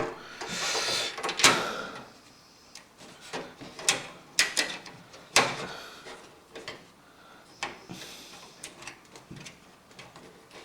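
Thin sheet-metal motherboard I/O shield being worked into the PC case's rear opening: a brief scrape near the start, then a series of separate sharp metallic clicks and taps as the plate is pushed against the case.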